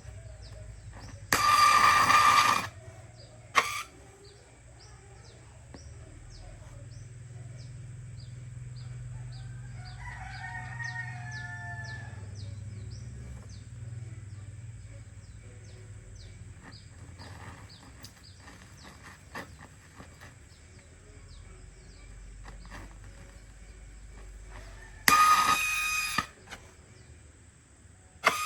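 A rooster crowing twice, once about a second in and again near the end, each crow lasting about a second. A fainter call comes in the middle, over a low steady hum.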